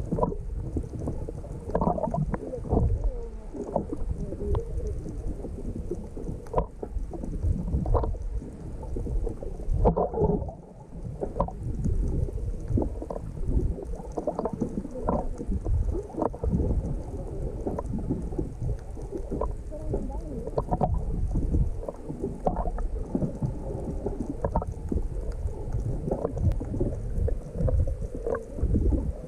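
Muffled water sloshing and rumbling, with frequent irregular knocks and thumps, as heard through a camera held under the water.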